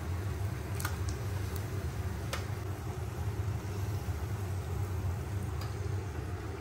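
Banana fritters frying in shallow oil: a steady sizzle with a few sharp clicks, over a steady low hum.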